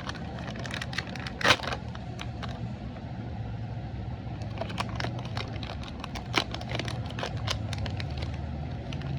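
Packaging being handled and opened: scattered crinkles and clicks of plastic wrapper, with one louder crackle about a second and a half in, over a steady low rumble.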